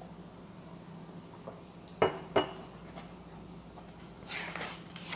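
Two sharp clinks of a hard object about half a second apart, near the middle, then a brief rustle of paper as a page of a large book is handled, over a faint low steady hum.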